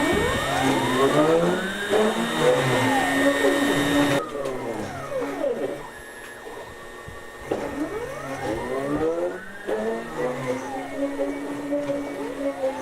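A small motorised machine whirring, its tone sweeping up and down in two long waves. It is loudest for the first few seconds and drops off sharply about four seconds in.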